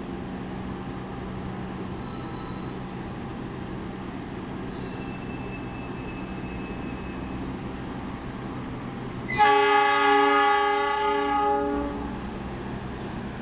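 Diesel locomotive horn sounding one long steady blast of about two and a half seconds, starting a little after the middle, over a steady low hum.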